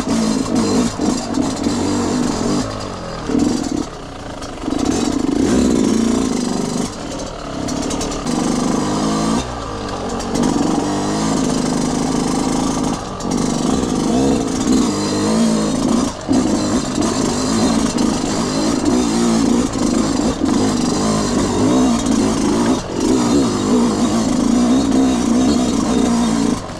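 Yamaha YZ125 two-stroke single-cylinder engine being ridden off-road, its note rising and falling with the throttle and dipping briefly every few seconds.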